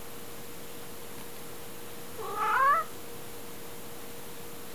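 A cat meowing once, a single rising call about two seconds in.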